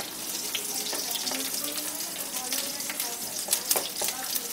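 Chopped garlic and nigella seeds sizzling in hot mustard oil in a steel kadai, stirred with a wooden spatula. The spatula knocks and scrapes against the pan a few times near the end.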